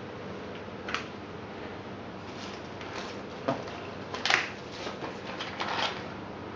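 Hands handling a headphone box and its cardboard packaging: a few short knocks and rustles, the loudest a little past four seconds in, over a steady background hiss.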